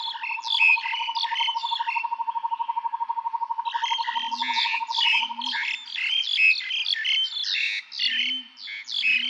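Songbirds singing in a forest chorus, with quick repeated chirping phrases. A steady fast trill runs beneath them and stops about two-thirds of the way through, and a few short low calls come in twice near the middle and again near the end.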